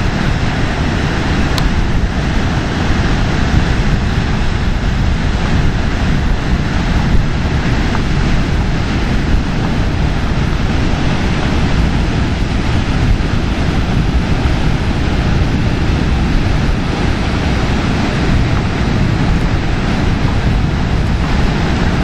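Steady, loud outdoor wind noise buffeting the microphone, heaviest in the low rumble, mixed with the wash of sea surf.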